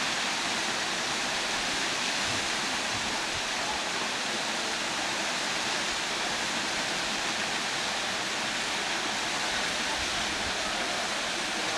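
Waterfall: a steady rush of water falling over rock.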